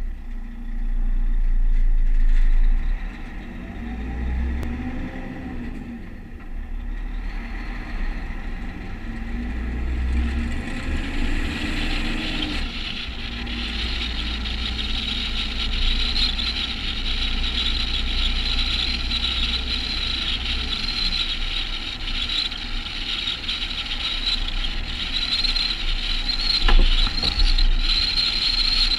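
Volvo FH16 700 truck's 16-litre straight-six diesel engine pulling away on a snowy road, its pitch rising twice in the first twelve seconds as it goes up through the gears. A steady high hiss of the truck's tyres and wind joins from about twelve seconds in as it settles to a steady speed.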